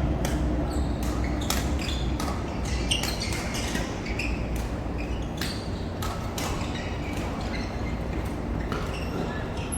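Badminton rackets hitting a goose-feather, cork-headed shuttlecock during rallies in an echoing hall: a run of sharp hits at uneven spacing, often less than a second apart, over a low steady background.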